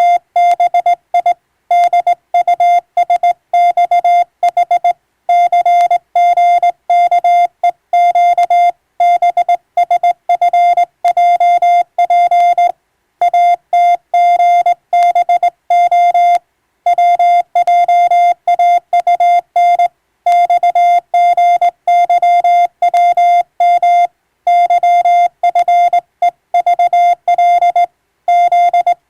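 Morse code (CW) sent as one clean, steady tone keyed on and off in dots and dashes, with brief pauses between words.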